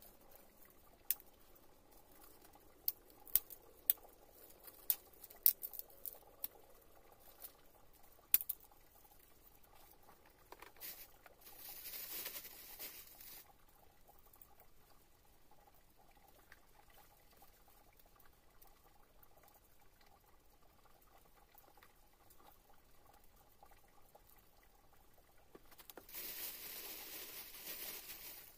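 Dry brushwood twigs being snapped and laid for a fire, giving a dozen or so sharp cracks and clicks over the first eight seconds. Later come two bouts of crinkly rustling, the second as a plastic bag is handled.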